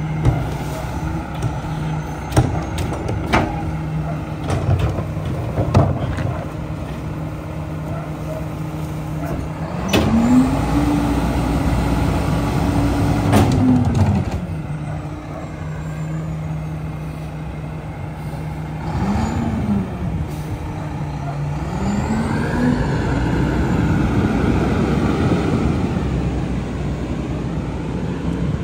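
Diesel engine of a Mack Granite rear-loader garbage truck idling while a yard-waste cart is banged against the cart tipper. The bangs come as a few sharp knocks over the first several seconds. About ten seconds in, the engine revs up and holds for about four seconds as the Leach packer cycles, then drops back to idle. Near the end it revs up again and runs higher for a few seconds.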